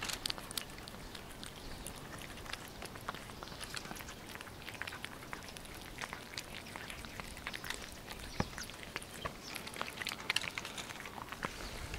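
Two cats eating boiled carp off a plastic plate close to the microphone: many small, irregular chewing and smacking clicks.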